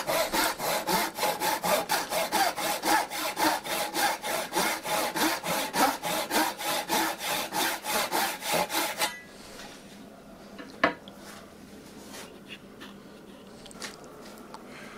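Brass-backed hand saw cutting a slot into the top of a padouk and oak hammer handle for the wedge, in fast, even strokes of about five a second. The sawing stops about nine seconds in, followed by one sharp click and a few faint knocks.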